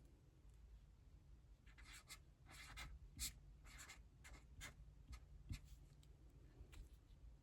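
Faint scratching of handwriting: a run of short, quick writing strokes begins about two seconds in after a quiet start.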